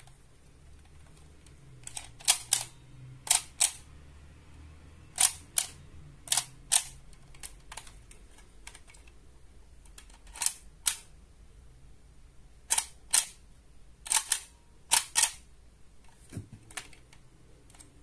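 Sharp plastic clicks from a DX Monster Raise Buckle toy being handled, mostly in pairs a few tenths of a second apart, recurring every second or two, with a soft low thump near the end.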